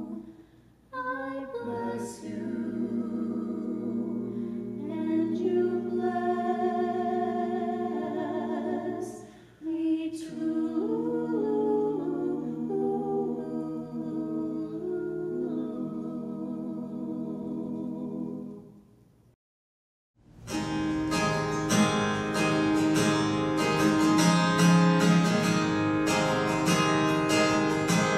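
A mixed vocal quartet singing a cappella in held chords, fading out. After a brief silence about two-thirds of the way in, a worship band starts a song intro with strummed acoustic guitar and drums.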